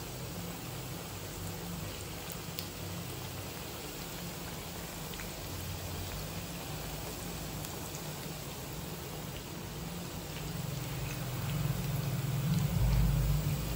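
Rice-flour papdi deep-frying in hot oil in a kadhai: a steady sizzle with scattered small pops and crackles. A low rumble swells near the end.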